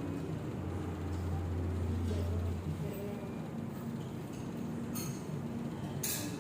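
A steady low background hum, with a couple of short light clinks near the end, like tableware being handled.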